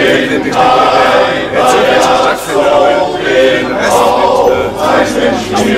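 Men's choir singing together in long held notes, with short breaks between phrases.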